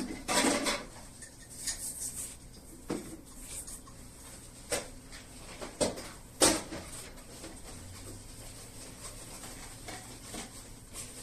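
Scattered metal clinks and knocks among faint rustling, from a manual metal grain grinder being handled, the loudest knocks near the start and about six and a half seconds in.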